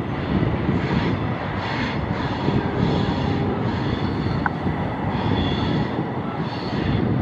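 A long freight train of tank wagons, hauled by a diesel locomotive, runs along a curving track with a steady rumble from the engine and rolling wheels.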